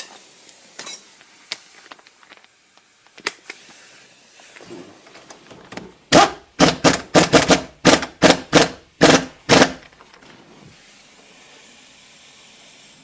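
Hand tools working on a Subaru front ball joint: a few light clicks, then about halfway through a run of about ten sharp knocks, roughly three a second, over three to four seconds.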